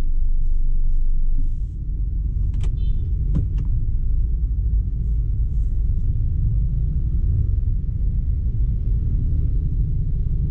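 Low, steady rumble of a vehicle on the road in traffic, louder for the first second and a half. Two sharp clicks come about two and a half and three and a half seconds in.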